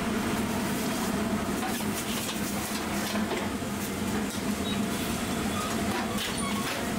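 Large aluminium idli steamer open and venting steam: a steady rushing noise with a low hum under it. Scattered light metallic clicks come as the idli racks inside are handled.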